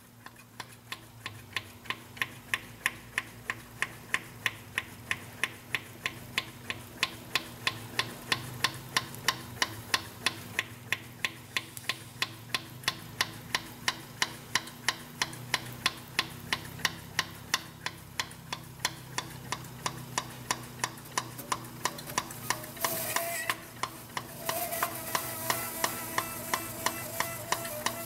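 Hand primer on an 8.3 L Cummins fuel system being pumped by hand, clicking about three times a second. Near the end a hiss and a high-pitched whine join in: air being forced out of the inline injection pump through the bleeder or the pressure regulator as the system is bled.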